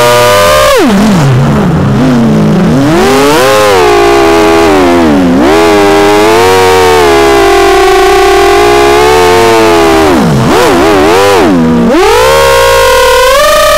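A GE 220 quadcopter's SunnySky 2207 2100kv brushless motors spinning two-blade DAL 6045 props, heard from the onboard camera as a loud whine whose pitch swoops up and down with the throttle. The whine drops sharply about a second in, dips again in the middle and twice more near the end, then climbs back high.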